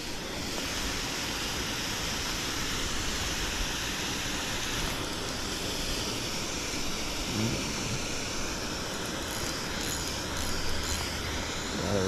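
Steady rush of river water: an even, unbroken noise.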